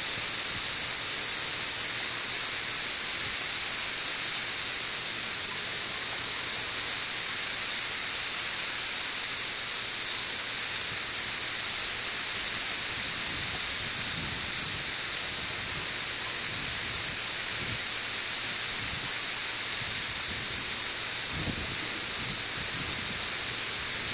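Chorus of periodical cicadas (17-year cicadas, Brood XIV) from a mass emergence: a loud, steady, unbroken high hiss that can be mistaken for static.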